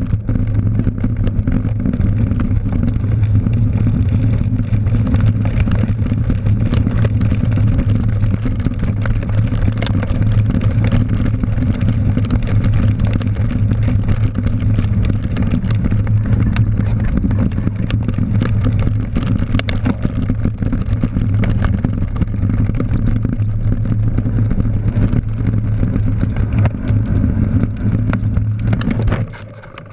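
Cyclocross bike riding fast over a dirt and grass course, picked up by a GoPro mounted on the bike: a loud, steady low rumble of wind buffeting the camera microphone and the knobby tyre rolling, with scattered clicks and rattles from the bike over bumps. The rumble drops away briefly near the end.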